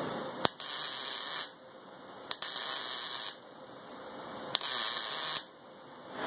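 Wire-feed welder laying three short welds on a steel frame: three crackling hisses of about a second each, each starting with a sharp click as the arc strikes.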